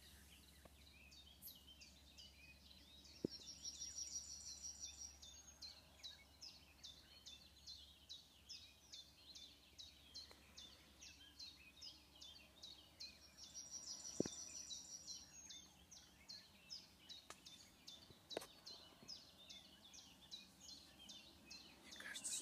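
Faint birdsong: a short high chirp repeated about three times a second, two brief high trills, and other scattered calls, with a few faint clicks.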